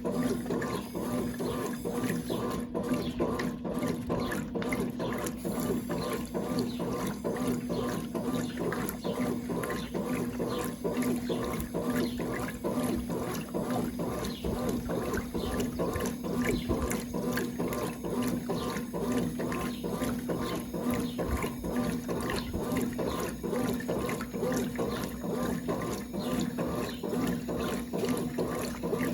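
1996 Brastemp Clean 5 kg washing machine running, with water moving in the tub over a steady hum.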